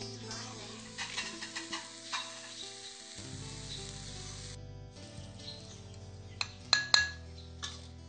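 A metal spatula scraping and clinking against a wok as a stir-fry is stirred and scooped out, with the hot food sizzling lightly for the first half and a few sharper clinks near the end. Background music plays underneath.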